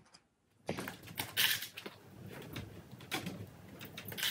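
Hands stretching and smoothing upholstery fabric over the back of a chair shell: irregular rustling and rubbing with scattered small knocks and scrapes, starting about a second in after near silence.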